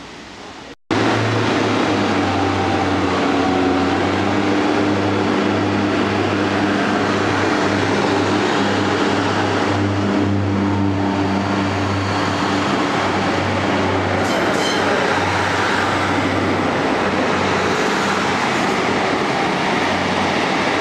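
Northern Class 156 diesel multiple unit's underfloor diesel engines running with a steady low hum as the unit moves past at close range. The sound starts abruptly about a second in.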